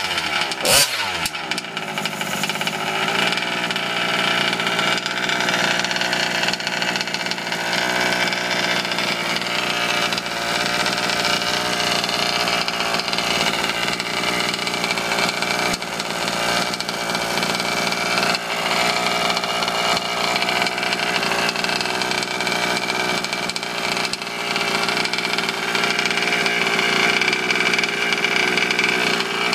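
Stroked Zenoah G320 two-stroke single-cylinder engine in a Losi 5T RC truck running steadily through its tuned pipe, with a brief rev that falls back less than a second in.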